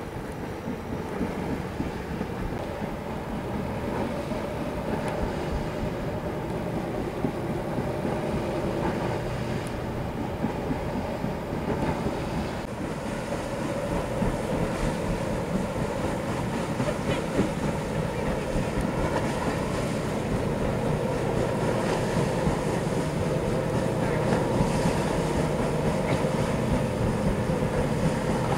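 Great Lakes bulk freighter's diesel engines running with a steady low rumble and hum, growing gradually louder as the ship draws closer, with wind buffeting the microphone.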